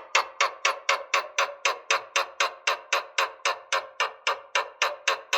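Lovebird's long 'ngekek' chatter: an unbroken run of sharp, rapid notes, about five a second, the excited call used to rile other lovebirds.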